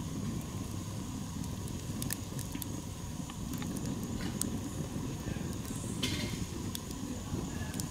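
Wood campfire burning in a metal fire ring: a steady low rush from the flames, with a few sharp crackles and pops scattered through it.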